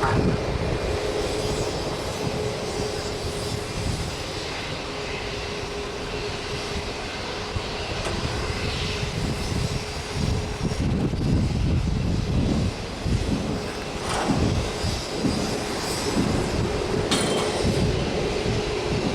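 Jet airliner engines running: a steady whine over an uneven low rumble that grows louder and more gusty about halfway through.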